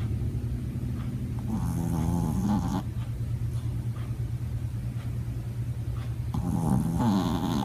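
Sleeping dog snoring: two drawn-out snores with a wavering pitch, about four and a half seconds apart, over a steady low hum.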